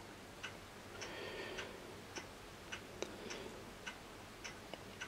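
Quiet room tone with faint, regular ticking, a little under two ticks a second.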